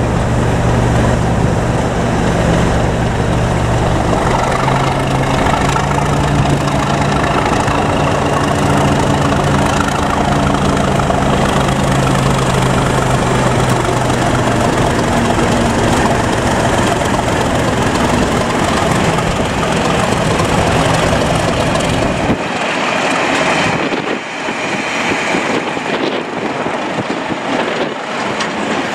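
Class 37 diesel-electric locomotive's English Electric V12 engine running under power as it hauls a test train past, its engine note shifting about four seconds in. The engine sound drops away after about 22 seconds, leaving the rumble and clatter of the coaches' wheels on the rails.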